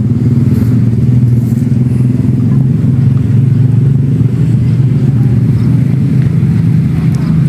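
A small engine running steadily at one constant speed, a low, even hum.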